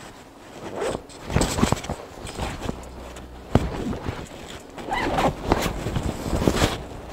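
Zipper on a Montec ski jacket being worked and pulled up, mixed with the rustle of the jacket's shell fabric as it is pulled on around the shoulders; irregular scratchy strokes.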